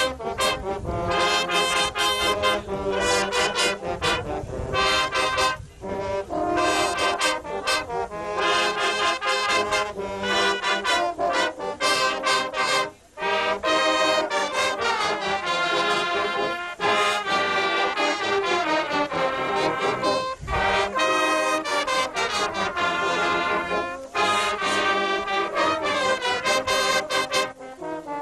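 A youth brass band of horns and baritones playing a tune together in sustained, changing notes, with one brief break about halfway through.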